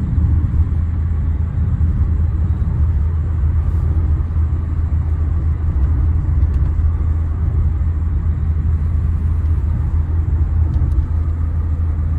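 Inside the cabin of a BMW 318i E30 while driving: the four-cylinder engine and the tyres on the road make a loud, steady low rumble.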